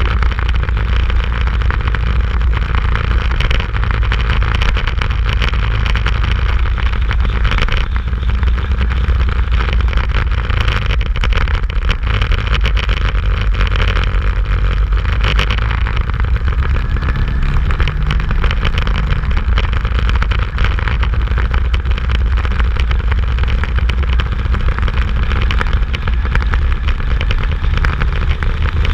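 Motorcycle ridden on the road, heard from the bike itself: the engine running under way with heavy wind rumble on the microphone, steady throughout. A faint rising engine note comes through about halfway.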